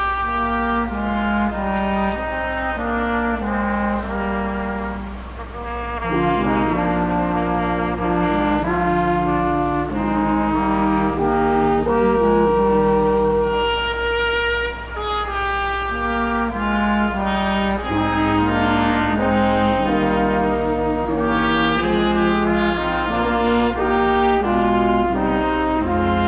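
Brass ensemble of trumpets, trombones and horns playing Christmas music, several parts holding and changing chords together, with short breaths between phrases.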